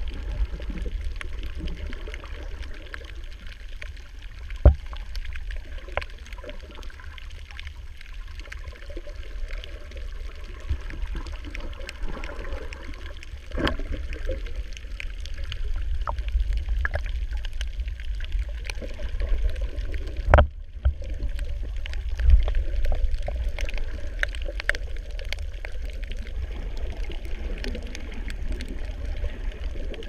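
Underwater sound in shallow reef water: a steady low rumble of moving water with scattered faint clicks and a few sharper knocks, the loudest about four and a half seconds in. The sound cuts out for a moment about twenty seconds in.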